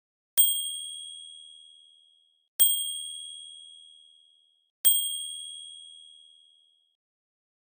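Typewriter bell struck three times, about two seconds apart; each strike is a bright, high ding that rings out and fades. It is the signal that the countdown has run out.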